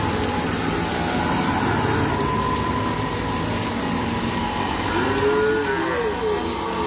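Street traffic on a wet, flooded road in rain: auto-rickshaw and car engines running, with tyres swishing through water under a steady rain hiss.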